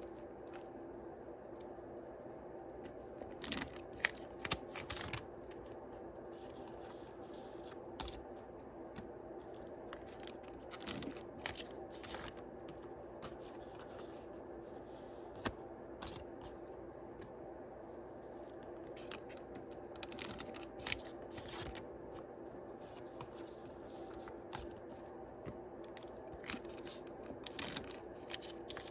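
Foil booster-pack wrappers crinkling and being opened, and trading cards handled, in short clusters of crackles and rustles over a steady low hum.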